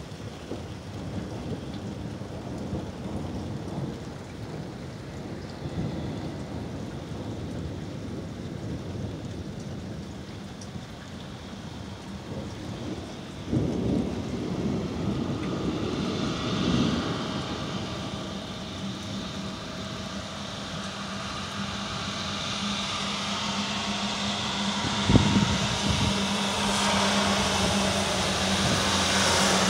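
Thunder rolling in a thunderstorm, with a steady hiss of rain. The rumbles surge louder about fourteen and seventeen seconds in. In the second half a hiss and a steady low hum build, with one sharp knock near the end.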